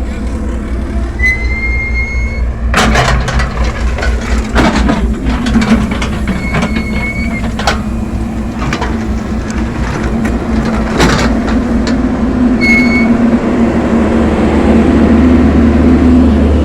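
A backhoe's diesel engine running steadily under load, with loud metal clanks and knocks from the bucket and linkage while digging mud. There are three short, high squeals along the way, and the engine grows louder near the end.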